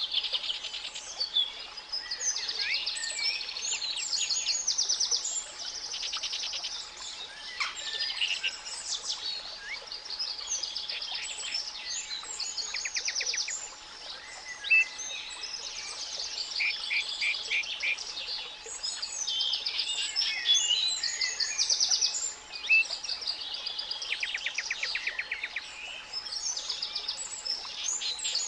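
Spring songbirds singing in a dense chorus of overlapping chirps and rapid trills, over a quieter steady 852 Hz pure tone that holds unbroken throughout.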